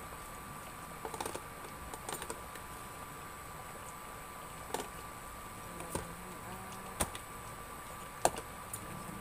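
A spoon clicking and tapping against a pan as shrimp are set into simmering broth: scattered sharp clicks, the loudest about eight seconds in. A steady high whine from the running induction cooker lies under them.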